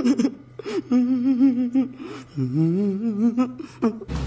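A man's voice humming two long, wobbling phrases, the second starting low and rising in pitch.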